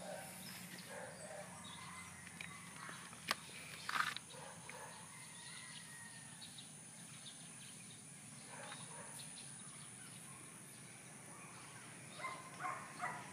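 Quiet outdoor background with occasional short animal calls, most of them in a cluster near the end. There is a sharp click about three seconds in and a brief louder noise about a second later.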